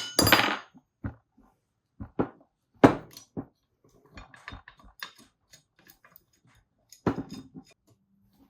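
Metal workshop tools and parts being handled on a bench: a few irregular clanks and knocks, the loudest nearly three seconds in and about seven seconds in, with lighter clicks in between.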